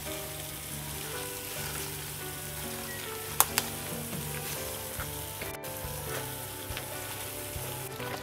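Background music of slow held notes over a faint steady crackling hiss, with two sharp clicks in quick succession about three and a half seconds in.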